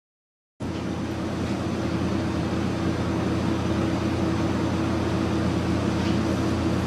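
Steady mechanical hum of restaurant kitchen equipment, a constant drone with a held low tone, cutting in abruptly about half a second in after silence.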